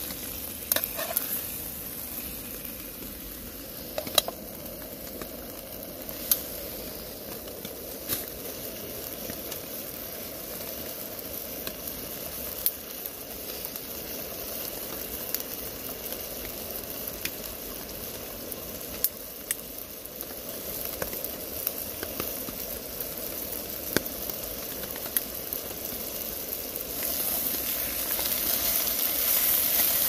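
Steak and chicken breast frying in oil in a pan: a steady sizzle with scattered sharp pops of spitting fat, growing louder near the end.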